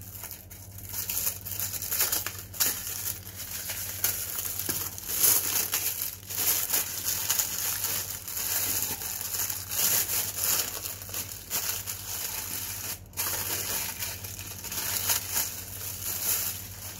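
Clear plastic bag crinkling and rustling as it is handled and opened by hand, with a brief pause about three-quarters of the way through.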